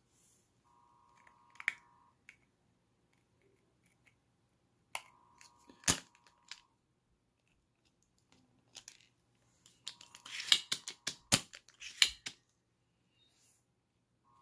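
Spring-loaded solder sucker being cleared of jammed solder: sharp clicks and knocks as its plunger is worked and the tool is handled, with a quick run of clacks about ten seconds in. A faint buzzing tone recurs every few seconds.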